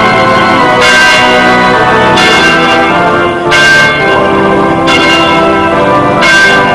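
Church bells pealing as wedding bells, a loud ringing wash of many overlapping tones with a fresh strike about every second and a half.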